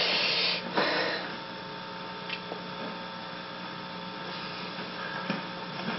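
Steady electrical hum over background hiss, with two short rustling noises in the first second.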